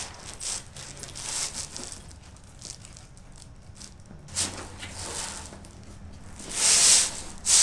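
Nylon fabric and straps of a tactical backpack rustling and crinkling as the bag is handled and adjusted, with louder rasping rustles near the end.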